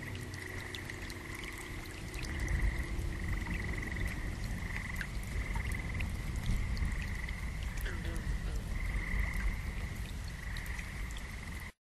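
A chorus of frogs calling in repeated trills, each about a second long, over a low rumble. It cuts off suddenly near the end.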